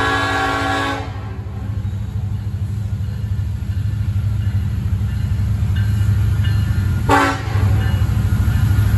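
Norfolk Southern diesel freight locomotive's air horn finishing a long blast about a second in, then one short toot about seven seconds in. Under it, the low rumble of the diesel locomotives grows louder as the train approaches.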